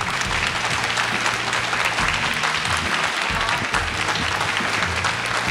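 A group of people applauding: dense, steady clapping.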